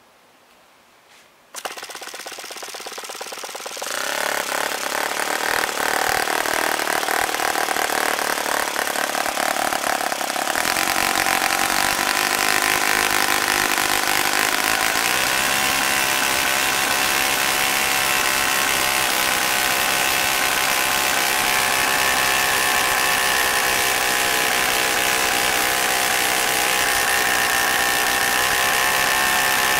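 OS FS-40 four-stroke glow engine with an APC 11x6 propeller starting on its first run after a rebuild: it fires about a second and a half in, builds over a few seconds and settles into steady running at full throttle. Its pitch creeps up a little near the end.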